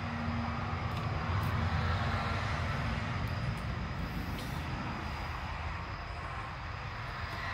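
A steady low rumble that swells a little and then eases off, with a few faint light clicks of metal parts being handled.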